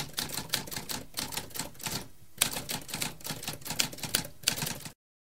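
Typewriter keys struck in a rapid run of clicks, with a short pause about two seconds in. The typing cuts off suddenly just before the end.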